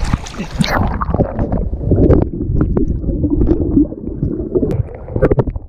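Muffled water sloshing and gurgling with a heavy low rumble and scattered knocks, as in the water after a capsized jet ski. The high end drops away about a second in.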